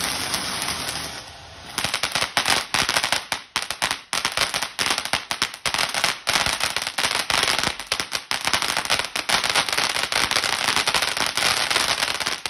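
Phantom Fireworks Alpha Wolf ground fountain burning: a steady hiss of spraying sparks, then from about two seconds in a dense, rapid crackling of many small sharp pops.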